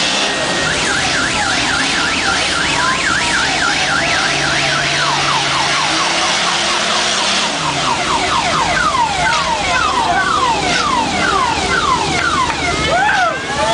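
Electronic siren sounding a fast yelp, its pitch rising and falling about three times a second, then switching about five seconds in to slower falling sweeps, about two a second. It plays over steady background noise.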